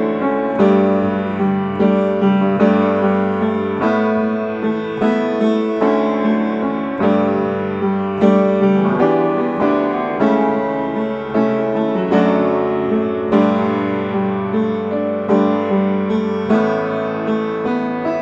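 Upright piano played as a simple chord accompaniment, both hands striking chords in a steady, regular rhythm.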